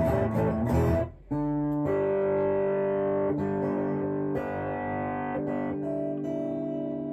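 Harley Benton Telecaster electric guitar played through an amp on its distortion setting, with the pickup selector in the middle position. About a second of quick chord playing, a brief break, then a run of long ringing chords changing every second or so.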